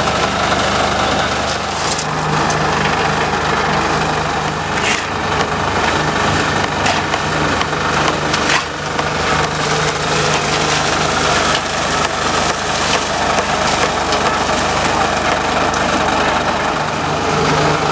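Portable concrete mixer running: its small engine drones steadily while the drum turns, with scattered knocks and clatter from the tumbling mix.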